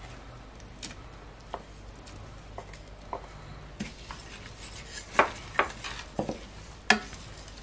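Wooden spatula scraping sliced onions out of a glass bowl into a stainless-steel pot of oil, then stirring, with scattered knocks and scrapes of the spatula against the pot, loudest about five to seven seconds in.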